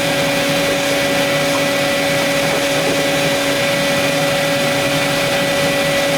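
Vacuum cleaner running steadily at constant speed, a loud even motor whine over rushing air, used to vacuum out a stripped car interior.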